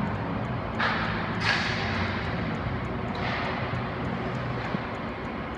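Steady machine hum of an indoor ice rink, with a few brief hissing scrapes about a second in, at a second and a half, and about three seconds in.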